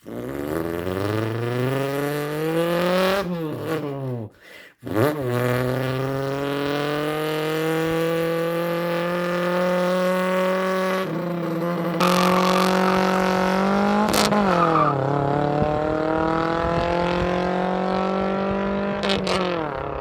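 A person imitating a sports car engine with their mouth: a buzzing, engine-like tone that climbs in pitch and drops suddenly as if shifting gears, with a short break about four seconds in. Long steady held stretches follow, broken by another rev and shift about fourteen seconds in.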